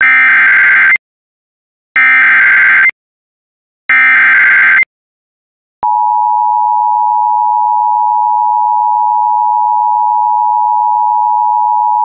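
Emergency Alert System SAME header: three one-second bursts of warbling data tones, two seconds apart, encoding a severe thunderstorm warning. About six seconds in, the steady two-tone EAS attention signal begins and holds.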